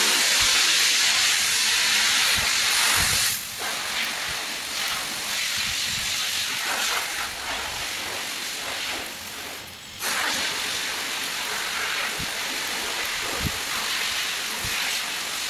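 A loud, steady hiss. It eases a little after about three and a half seconds and drops out briefly around ten seconds, with a few faint low knocks near the end.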